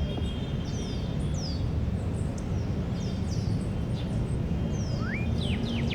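Park ambience: small birds chirping in short, high, falling notes over a steady low rumble of distant city noise, with a quick run of louder sweeping chirps near the end.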